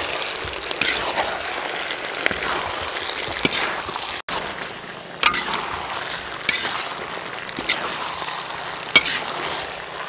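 Meatballs and vegetables in thick tomato sauce sizzling in a metal wok while a metal spoon stirs them, scraping the pan about once a second. The sound cuts out for an instant a little over four seconds in.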